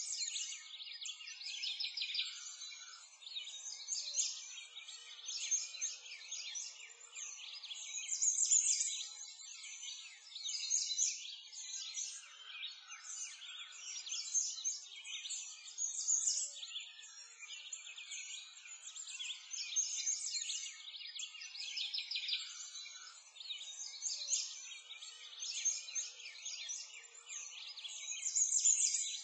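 A dense chorus of many small songbirds chirping and trilling continuously, all of it high-pitched, swelling and fading in loudness.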